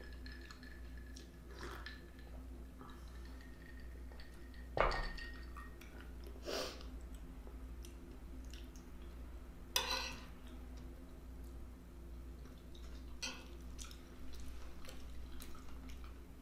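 Close-up chewing of food, with a few sharp clinks or knocks, the loudest about five seconds in, over a steady low hum.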